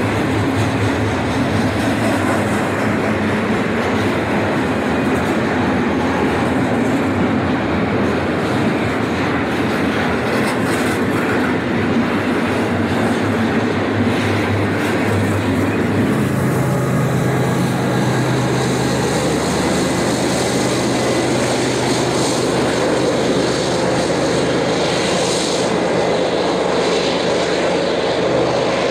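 Freight train running past: a steady rumble of rolling cars with the drone of diesel locomotive engines, whose pitch steps up about halfway through.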